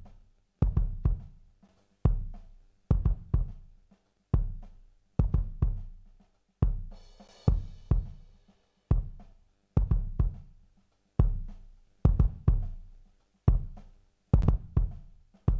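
Drum kit groove played back through a studio compressor: deep kick and snare hits in a slow steady pattern, each dying away before the next, with a cymbal wash about halfway through.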